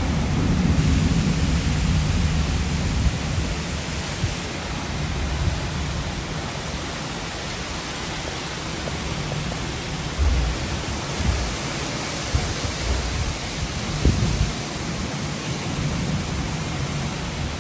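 Heavy rain falling steadily in a thunderstorm, with a low rumble of thunder that starts suddenly and rolls on for about three seconds, and later a few low gusts of wind.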